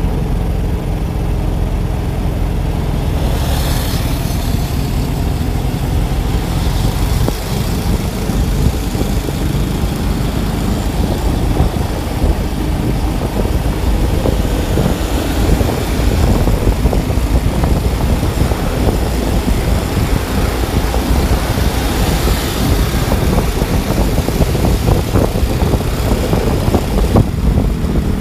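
Steady rumble of wind on the microphone mixed with engine and road noise from riding along at speed, with motorbikes running just ahead. A brief hiss rises a few seconds in and again about two-thirds through.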